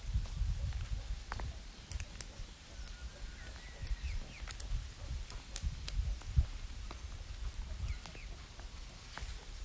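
Fingers picking the shell off a grilled egg: scattered small dry clicks and crackles over an uneven low rumble.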